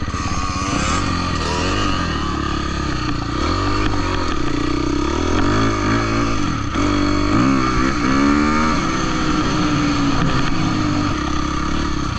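Husqvarna dirt bike engine running under throttle on a trail ride, heard from on the bike, its pitch rising and falling repeatedly as the throttle opens and closes.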